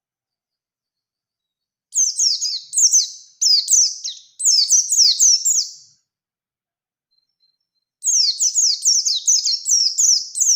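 White-eye (pleci) singing a fast, continuous twittering song of rapid, high, down-slurred notes. It comes in two bursts: one starts about two seconds in and lasts about four seconds, and the second starts near eight seconds and runs on.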